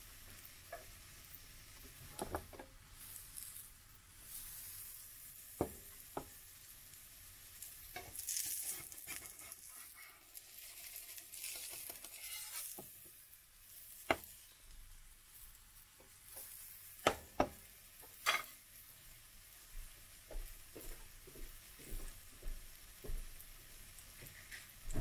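Pancake batter sizzling in hot fat in a frying pan, with several sharp clicks and scrapes of a slotted plastic spatula against the pan, and a run of small ticks near the end.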